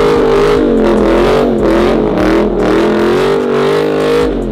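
Car engine held at high revs during a burnout with the wheels spinning. The pitch wavers up and down as the throttle is worked, then the revs fall away near the end.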